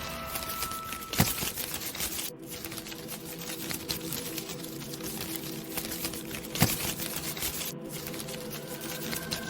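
Rapid, dense clicking and crackling over a faint sustained drone, with two sharp knocks, one about a second in and one near the end.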